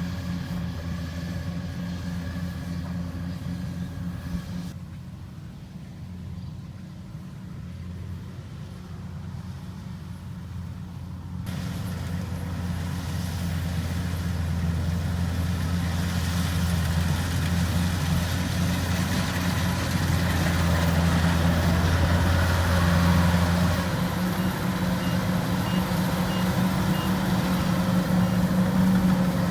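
Rice combine harvester's diesel engine running steadily at constant speed. It is duller and quieter for a few seconds near the start, then grows louder through the second half.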